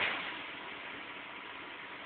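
Steady running noise of a CNC turret punch press between strokes. The last punch stroke dies away in the first half second.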